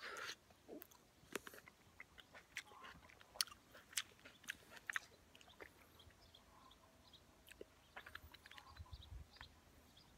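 A person biting into and chewing small fresh plums close to the microphone: faint wet mouth sounds with many short, sharp clicks, a little louder at the very start.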